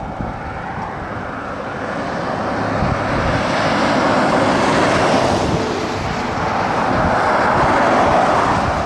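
Wind buffeting the microphone outdoors, under a rushing noise that swells over a few seconds and drops off near the end.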